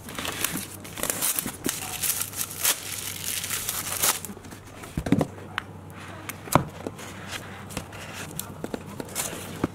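Plastic shrink wrap crinkling and tearing as it is pulled off a cardboard tablet box, for about the first four seconds. After that come scattered light knocks and taps as the box is opened and the tablet lifted out.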